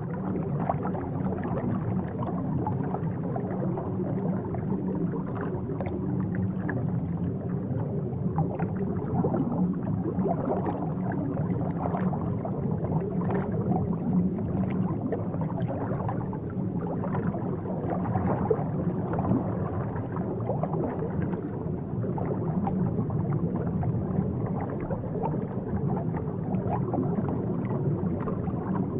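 Aquarium water bubbling and gurgling steadily, a continuous wash of small irregular pops and splashes.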